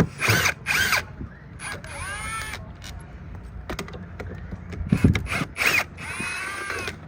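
Power drill run in several short bursts, its motor whine rising and falling in pitch each time, working screws on a boat hatch. There is a low knock about five seconds in.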